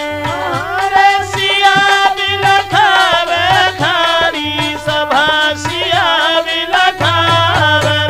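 Holi folk song music: a dholak keeping a steady beat under an ornamented melody line with sliding notes.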